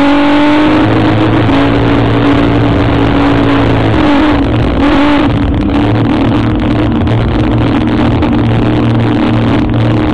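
Offshore racing powerboat's engines running steadily, heard from on board over a loud hiss. The engine note wavers briefly, dipping and recovering, about four to five seconds in.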